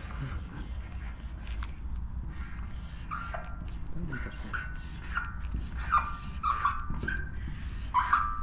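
Felt-tip paint marker squeaking against a smooth, glossy sign as a tag is drawn: a run of short squeaks starting about three seconds in, some dropping in pitch, with a steady low rumble underneath.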